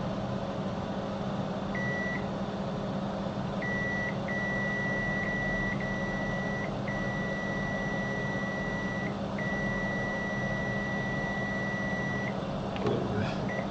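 A digital multimeter's continuity beeper sounds at one steady high pitch as the probes meet the iPhone SE's 5.7 V display line, in several beeps of a second or more, the longest about three seconds. The beeping shows the line is still shorted to ground.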